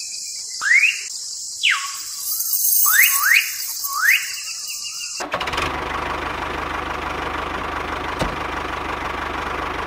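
Tractor engine sound, in the first half several short rising whines like an engine being cranked and revved. About five seconds in it changes abruptly to a steady engine rumble with hiss.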